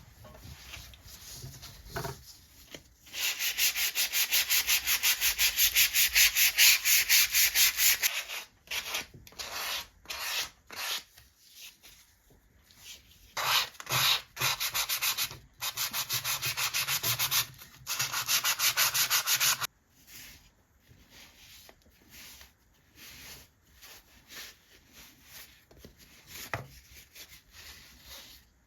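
Sandpaper rubbed back and forth on wood in quick, even strokes, several runs of rasping sanding. The longest run lasts about five seconds near the start, with shorter runs in the middle. Softer handling sounds fill the last third.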